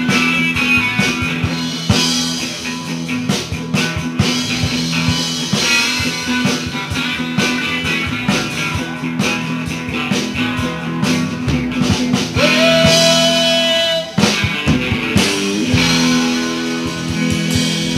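Live rock band playing an instrumental passage: electric guitars, electric bass and drum kit. About two-thirds of the way through, a lead note slides up and is held for a second and a half, then the band carries on.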